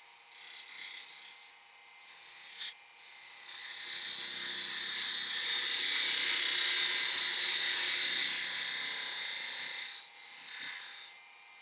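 Wood lathe running while a turning tool cuts a tenon on the end of a spinning wooden blank. There are two short cuts in the first few seconds, then one long cut lasting about six seconds, and a brief cut near the end.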